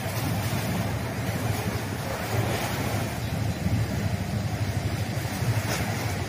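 Low, gusting rumble of wind buffeting the microphone over open waterfront ambience.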